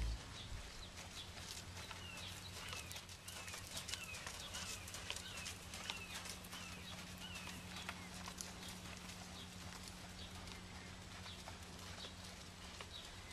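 Faint hoofbeats of a ridden Selle Français horse moving on arena sand, heard as soft irregular clicks. A short high falling chirp repeats about twice a second through the first half, over a low steady hum.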